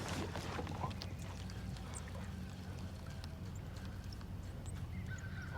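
Light knocks and small water sounds from a kayak on the water over a steady low hum. A bird starts calling near the end.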